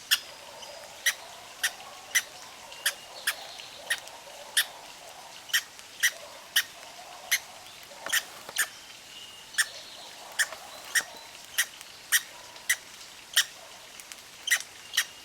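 Red squirrel hiccuping: a long series of short, sharp clicks, about one and a half a second and slightly uneven in spacing. Faint bird calls sound behind it.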